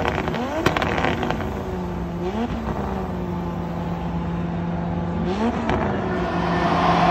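High-revving motorsport engine: it revs up in quick rises, then holds at a steady high speed, blipping up again about two and five seconds in. There are sharp pops in the first second.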